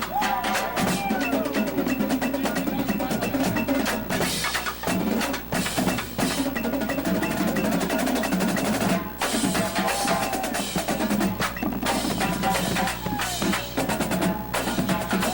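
Indoor percussion ensemble playing: snare and bass drums in dense rolls and strokes over ringing pitched mallet instruments.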